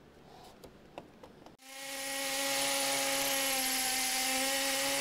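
DeWalt 20V cordless drill boring a hole for a Tapcon concrete anchor, through a treated 2x4 into a concrete post base. The drill starts about a second and a half in, winds up to full speed and then runs steadily with a high whine and grinding hiss.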